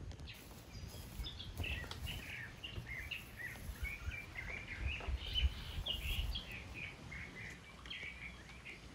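Small birds chirping, a dense run of short, quick high chirps, over a low rumble.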